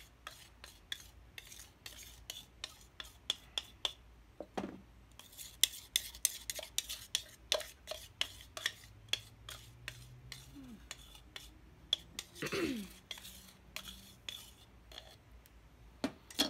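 Silverware utensil scraping and tapping against a cup as wet plaster of Paris is scraped out into the mold box: a run of sharp clicks and scrapes, several a second, thinning out later.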